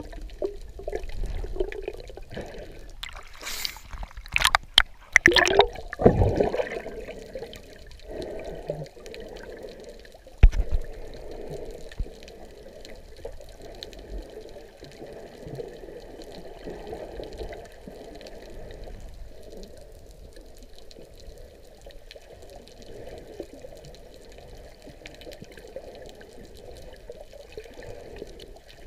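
Water sloshing and bubbling, heard muffled from a camera held underwater by a swimming snorkeler. There is a louder burst of splashing about three to six seconds in and one sharp knock about ten seconds in, then a steady muffled wash of moving water.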